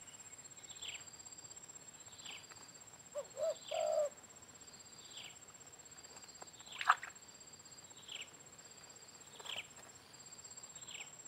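A spotted dove gives a short, soft three-note coo about three seconds in. Behind it a steady high insect drone runs on, and a small bird's short falling chirp repeats about every second and a half, one chirp louder about seven seconds in.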